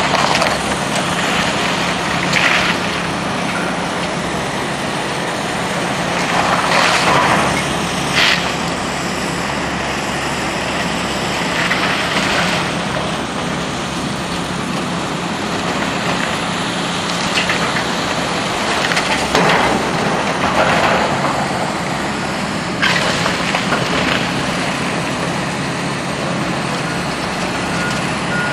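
Diesel engine of heavy demolition machinery running steadily while a building is torn down, with repeated crashes and crunches of breaking walls and falling debris, about eight of them spread through.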